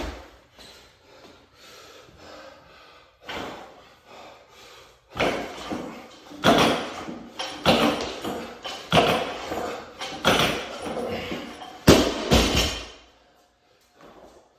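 Loud thuds and impacts from a barbell workout, coming about once every second and a bit for several seconds, then a sharp slam, the loudest hit, near the end before it goes quiet.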